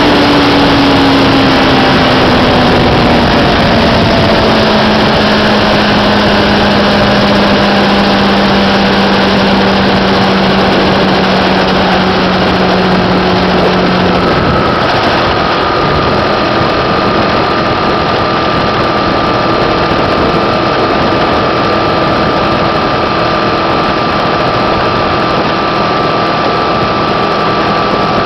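Motorcycle riding at highway speed: heavy wind rush over the microphone mixed with the engine's note. The engine note falls slowly through the first half and fades about halfway through, when a steady higher whine takes over.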